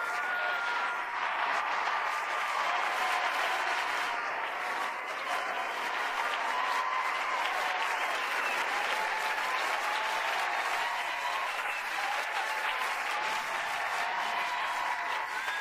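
Studio audience of a TV game show applauding and cheering, steady dense clapping with voices shouting and whooping over it.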